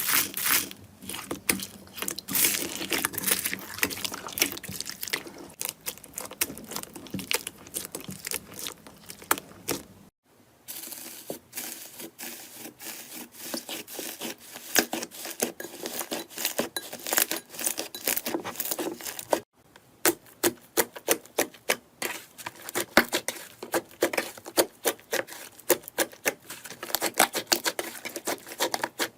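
Slime being worked by hand, giving dense crackling clicks and small wet pops. The sound breaks off abruptly twice, about ten and nineteen seconds in, and starts again.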